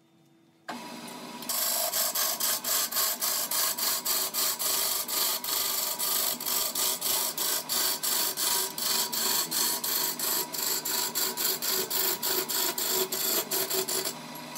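A wood lathe starting up about a second in, then a hand turning tool scraping and cutting a large spinning log, with a fast even pulse of about five beats a second. The cutting stops just before the end while the lathe keeps running.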